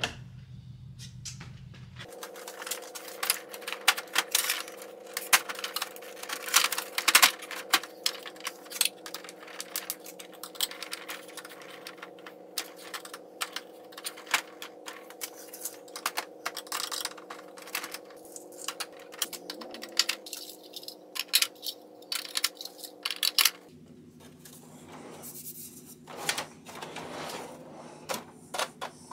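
Plastic tilt-out bins of a small-parts organizer being tipped open and snapped shut, a fast run of sharp plastic clicks and clatter that thins out over the last few seconds.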